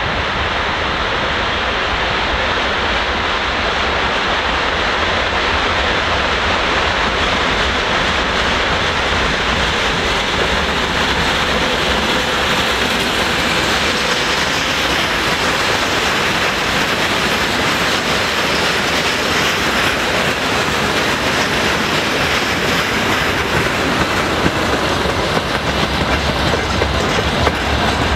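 ChME3T diesel shunting locomotive, with its six-cylinder ČKD diesel engine, approaching and passing, followed by a freight train of tank cars, hoppers and box cars rolling by with wheels clicking over the rail joints. The wheel clicks grow sharper near the end.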